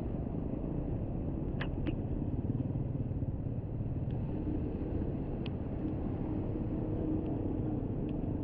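Steady low rumble of a motorcycle ride along a rain-flooded road: engine and road noise, with a few faint clicks about one and a half, two and five and a half seconds in.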